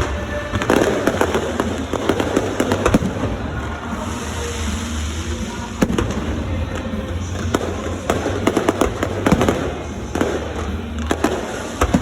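Fireworks going off in quick succession: repeated bangs and crackling, over a steady low background with music.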